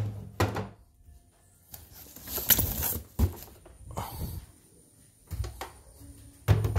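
Handling noises: scattered knocks, a rustle and a sharp click about three seconds in, then low thuds near the end as a plastic portable embroidery machine is moved and set down on a wooden bench.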